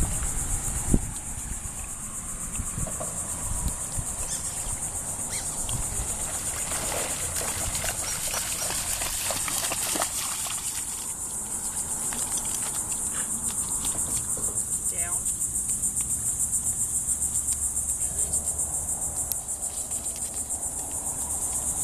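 A steady high-pitched insect chorus with a fast, even pulsing, over irregular splashing of a dog swimming and running through shallow water.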